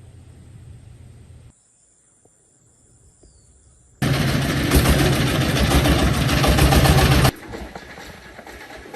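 Abrupt cuts between sound segments: a short stretch of near silence, then about three seconds of a diesel engine running loud with a rapid low chatter, cutting off suddenly to a quieter background noise.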